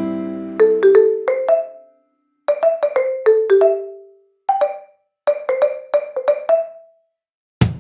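Light background music: short phrases of struck, ringing notes that fade out, with brief silent gaps between the phrases.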